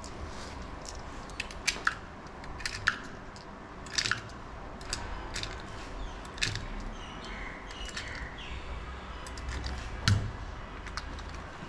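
9mm cartridges pressed one by one into a pistol magazine: short, sharp metallic clicks at irregular intervals, one every second or few seconds.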